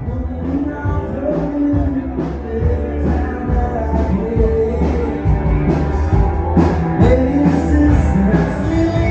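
Rock-and-roll music with singing and a steady beat.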